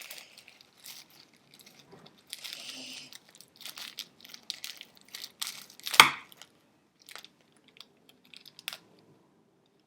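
Packaging rustling and tearing as a wrapped stone is unwrapped by hand, with scattered small clicks and one sharp knock about six seconds in.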